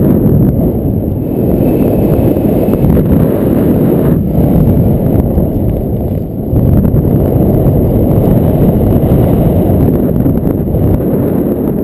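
Airflow buffeting an action camera's microphone in paraglider flight: a loud, steady low rumble of wind noise.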